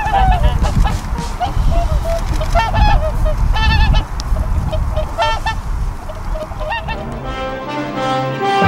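Whooper swans calling: repeated short, nasal honking calls in several bouts, over a steady low rumble. Music fades in near the end.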